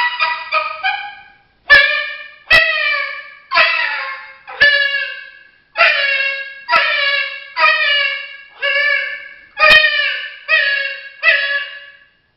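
Coyote barks blown on an MFK mouth-diaphragm call: a few quick short yips, then about a dozen sharp barks roughly a second apart, each falling in pitch as it trails off.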